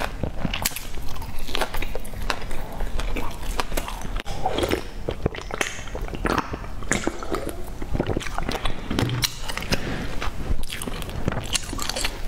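Close-miked chewing and biting: a person eating, with a steady run of irregular wet mouth clicks, smacks and soft crunches. Around the middle she drinks from a can.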